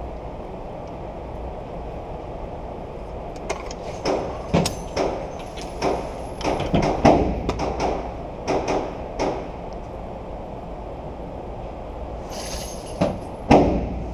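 Irregular knocks and clatters of a rifle and gear being handled on a shooting bench, over a steady low hum. A sharp, loud bang comes near the end.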